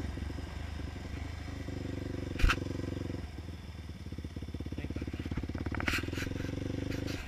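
450 sport quad's single-cylinder four-stroke engine running under way at low to moderate revs, its pitch dropping about three seconds in and picking up again afterwards. A single sharp knock sounds about two and a half seconds in.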